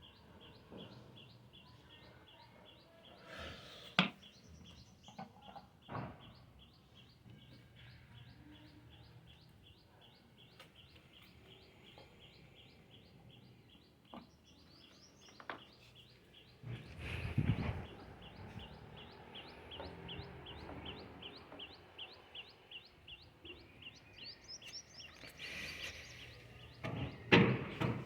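A bird chirping over and over in an even rhythm, about three short high chirps a second, with a few rising calls between. A few sharp knocks come early on, and louder knocking and clatter come in near the end.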